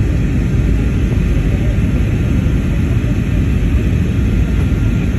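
Steady cabin noise inside an Airbus A320-family jet airliner on its landing approach: a loud, even rumble of engines and rushing air.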